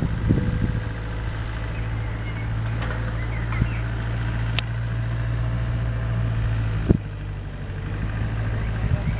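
A steady low hum of an idling engine, with a single knock about seven seconds in.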